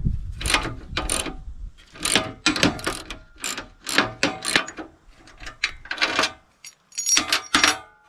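A ratchet worked in quick repeated strokes, each stroke a rasping burst of clicks; the strokes stop shortly before the end.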